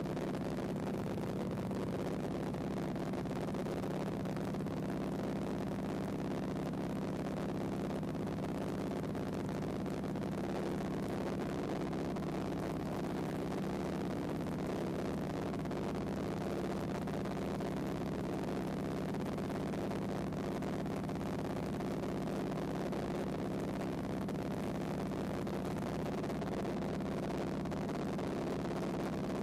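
Floatplane engine and propeller running steadily in cruise, heard from inside the cabin as an unchanging drone with a hiss of rushing air.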